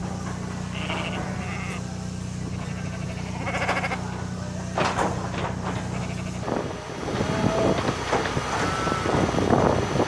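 Sheep bleating several times over a steady low motor hum. The hum cuts off about six and a half seconds in, after which more bleats mix with irregular knocks and rattles.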